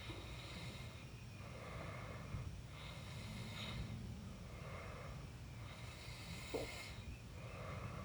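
A person snoring in slow, even breaths, one about every three seconds, with a short louder snort about six and a half seconds in. Under it runs a steady low hum and a faint steady insect drone.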